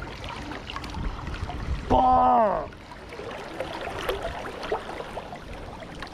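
Steady low outdoor rumble. About two seconds in, a person lets out a short held vocal sound that drops in pitch as it ends.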